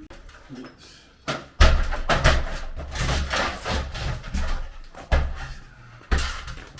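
Demolition work: a run of heavy knocks and bangs with rough clattering between them, beginning a little over a second in and recurring several times, typical of striking and breaking material loose with a hand tool.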